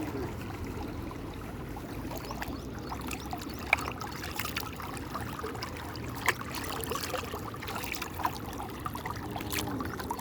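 Water trickling and splashing steadily, with three sharp plinks of drops or splashes standing out.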